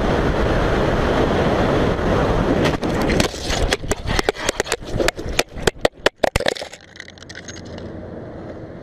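Motorcycle crash: steady rush of wind and riding noise on the microphone, then about three seconds in a rapid string of hard knocks and scrapes as the bike goes down and tumbles. After about seven seconds it settles to a lower steady noise.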